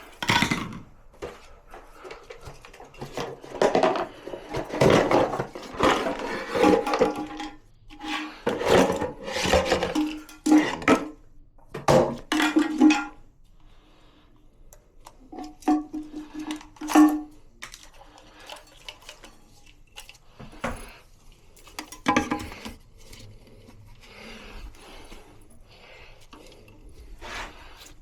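Irregular clattering, scraping and knocking of hard parts being handled while a toilet flush valve is replaced, with sharp clicks and short squeaks of rubbing; it quietens over the last several seconds.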